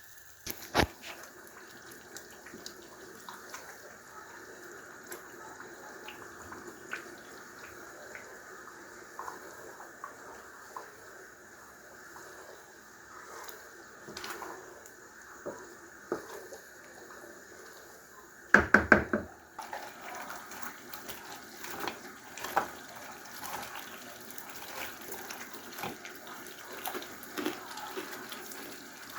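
Tomato stew frying in a pot, with a steady sizzle and small pops and crackles. A brief loud clatter about two-thirds of the way through.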